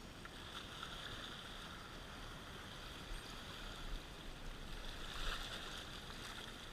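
Steady wash of seawater against the rocks, a faint continuous noise.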